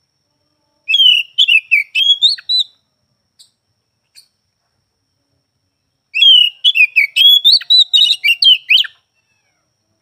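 Oriental magpie-robin (kacer) singing: two phrases of quick, varied whistled notes that slide up and down, the first about a second in and the second, longer one from about six seconds in, with a couple of faint single notes between them.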